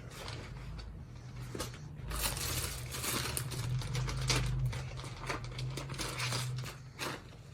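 Rustling and crinkling as garments are handled and shown one after another, thickest in the middle, over a steady low hum.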